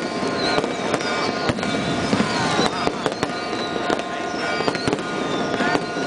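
Aerial fireworks bursting with repeated sharp bangs and crackle. Church bells ring on steadily underneath.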